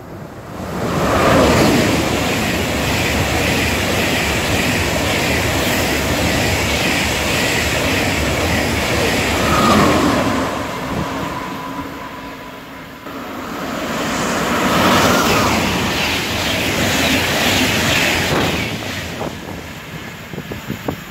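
An ICE 2 high-speed train passing at speed: a long rush of wheel and air noise that swells and fades about twelve seconds in. It is followed by a second fast passenger train passing through and receding over the last few seconds.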